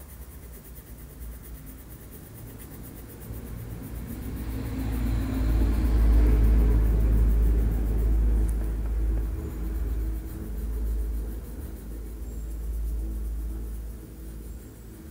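Low rumble of a passing vehicle, swelling up about four seconds in, loudest in the middle, and fading away near the end.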